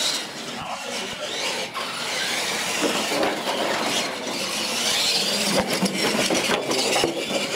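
Two electric RC monster trucks of the Tamiya Clod Buster type racing over a hard floor: a steady whine and rattle of motors and gearboxes with tyre noise, and a few sharp knocks as they go over the ramps.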